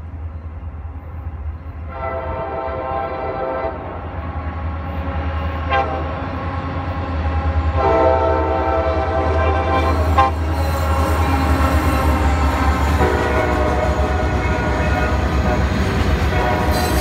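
CSX freight locomotive's air horn sounding several long blasts as the train approaches a road grade crossing, over a steady low rumble. From about ten seconds in, the wheel and rail noise of passing boxcars builds and grows louder.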